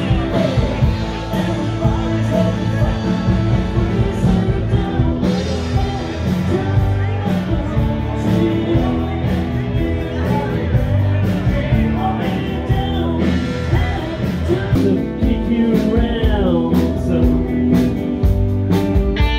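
A live rock band playing a song with a singer, electric guitars and drums, with a steady beat.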